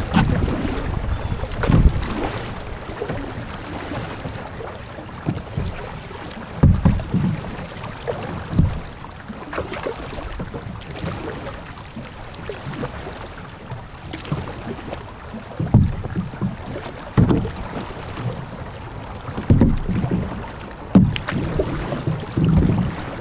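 Kayak paddles dipping and splashing while the TuckTec folding kayaks' plastic hulls swish through calm river water, with irregular gusts of wind on the microphone.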